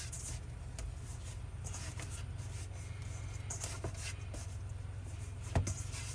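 Hands working flour into soft, sticky bread dough in a bowl: soft rubbing and scraping, with one sharp knock near the end, over a steady low hum.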